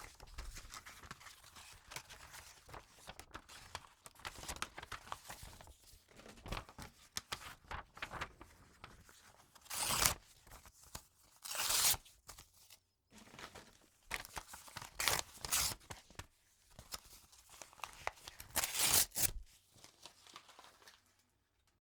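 Envelopes and paper being torn open and handled: intermittent rustling and crinkling with several louder rips, the loudest near the middle and again near the end.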